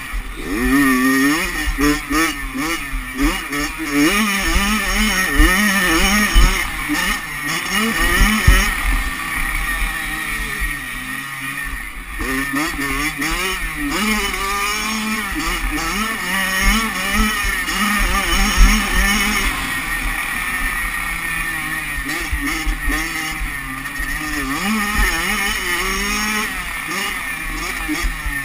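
Kawasaki 85cc two-stroke motocross bike engine at race pace, revving up and dropping back again and again as the throttle is worked through the gears. Wind buffets the helmet-mounted microphone, and low knocks come through from the track bumps.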